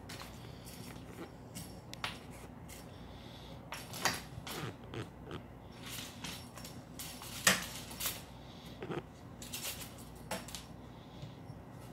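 Irregular light clicks, taps and scuffs of a cat's paws and claws on a hardwood floor as it pounces on a wand toy, with the sharpest knock about halfway through.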